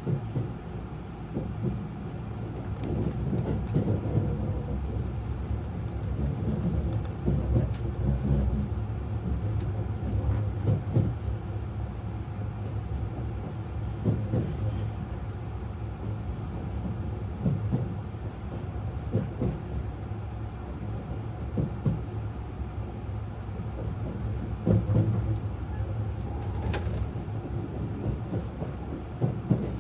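Cabin running noise of a 683 series limited express electric train heard from inside a passenger car: a steady low rumble with irregular knocks of the wheels over track joints. The train is drawing into its terminal station.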